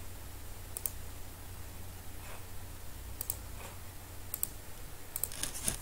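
Computer mouse button clicks: quick pairs of clicks about a second in, at about three seconds and at about four and a half seconds, then a quicker run of several clicks near the end. A steady low hum runs underneath.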